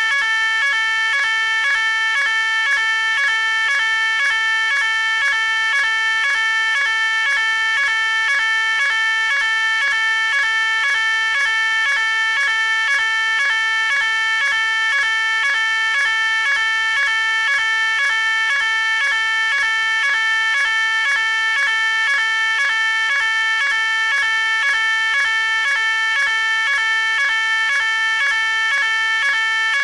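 Fire alarm sounding continuously: a loud, shrill electronic tone pulsing on and off in a fast, even rhythm without a break.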